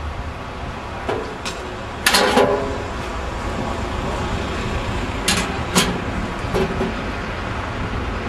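Stainless steel meter box door being handled and shut: a cluster of metallic knocks about two seconds in, then two sharp clicks around five and a half seconds and a fainter one after. A steady low rumble runs underneath.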